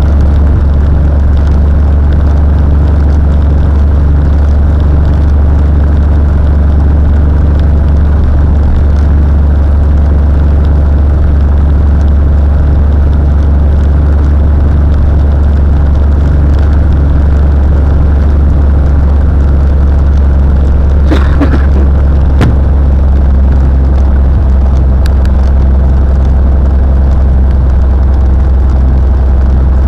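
Cessna 182's piston engine and propeller running with a steady, loud, low drone. A few brief clicks come a little past two-thirds of the way through.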